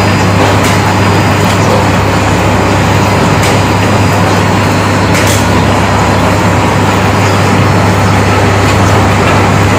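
5-foot spindleless rotary veneer peeling lathe with twin electric motors running under load as it peels a rubberwood log into veneer. A loud, steady machine noise with a strong low hum, and a few faint ticks.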